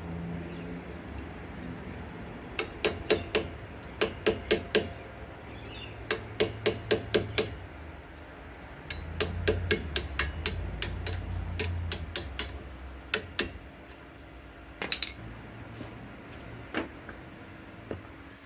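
Light hammer taps on a steel punch, driving the pad retaining pins out of a 6th-gen Camaro SS four-piston front brake caliper. The taps come in quick runs of four to six, with pauses between, then a few single taps near the end.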